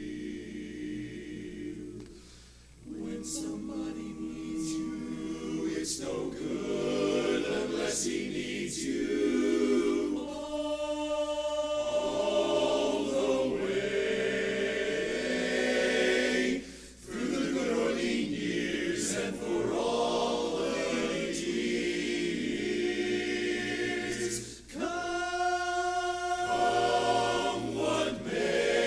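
A barbershop chorus singing a cappella in close harmony, with short breaks for breath between phrases.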